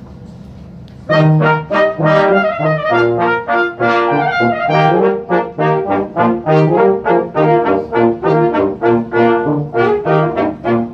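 A live brass ensemble of trumpet, trombone and tuba starts playing about a second in: a lively tune in quick, separate notes over a bouncing tuba bass line.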